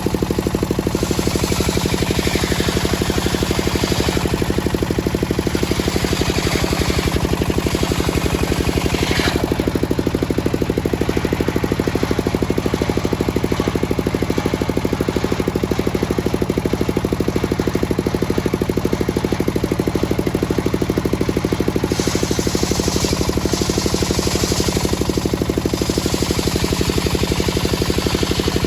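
Engine-driven circular sawmill running steadily with a fast, even pulse, its teak-sawing blade adding stretches of harsher, higher noise near the start, around the middle and again near the end.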